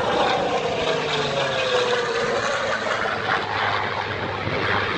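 Large-scale radio-controlled Spitfire model flying past: its engine and propeller run steadily, and the pitch drops over the first couple of seconds as it passes.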